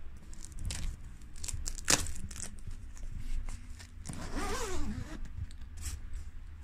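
Handling noise from a full-grain leather one-piece motorcycle suit on a hanger: rustling and scraping with scattered clicks. A short wavering squeak comes a little past four seconds in.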